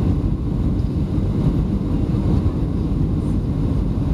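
Steady low rumble inside the cabin of a Boeing 737-700 airliner: engine and airframe noise with wheel rumble as the plane moves on the ground after landing.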